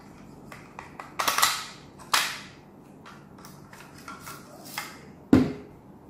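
Plastic clicks and clacks as the brush bar is pulled out of a Dyson DC58 handheld vacuum's motorised brush head, with louder clacks about a second and two seconds in and the loudest knock near the end.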